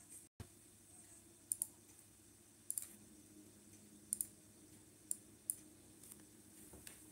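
Faint computer mouse clicks, several in quick pairs like double-clicks, over a low steady room hum.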